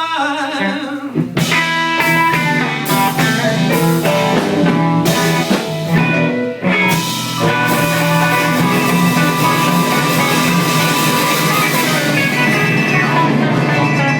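Live blues band playing: guitar over a drum kit with cymbal hits. The full band comes in about a second in.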